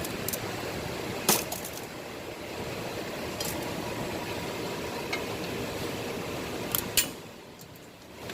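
A few sharp metal clinks of tools and engine parts being handled during an engine teardown: one about a second in and two close together near the end, over a steady background hum that drops away just before the end.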